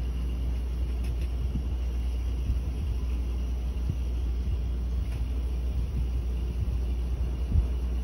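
Refrigerator compressor running with a steady low rumble while the empty system takes on refrigerant, with a few faint knocks over it.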